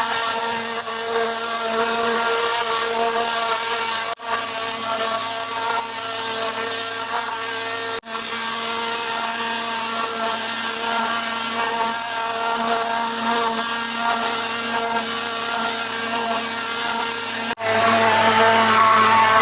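Gas pressure washer's small engine running steadily under load, with the hiss of its high-pressure spray on the deck boards. The sound drops out for an instant three times.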